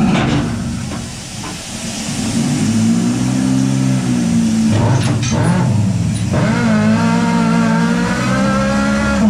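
Compressed-air overhead mucking machine (rocker shovel) working its bucket: loud hissing air motors with a wavering drone whose pitch dips about a second in and rises again after about six seconds as the controls are worked.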